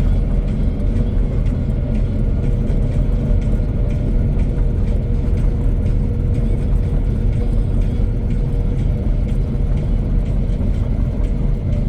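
The engine of a mowing machine running steadily under load, with a constant low rumble and a steady whine.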